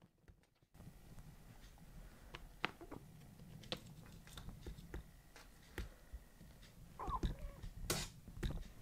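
A kitten's paws tapping and scrabbling on a wooden door and floor as it plays: a scattered run of light taps and clicks, busiest near the end, with a short squeak about seven seconds in.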